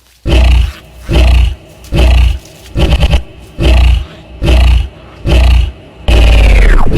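A bird screaming: seven harsh, very loud calls about half a second long, coming about every 0.8 seconds. Near the end comes one longer call that falls steeply in pitch. The sound is distorted and heavy in the bass, as if boosted.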